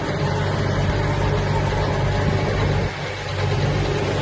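Tractor engine running steadily, with a brief dip in level about three seconds in.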